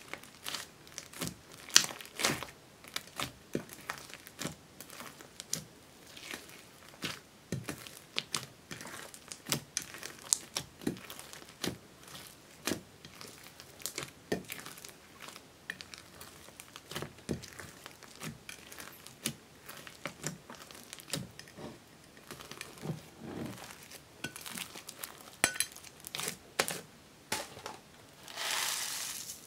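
Fluffy slime being kneaded and stretched by hand in a glass dish: irregular sticky crackles and small pops, with one longer squish of about a second near the end.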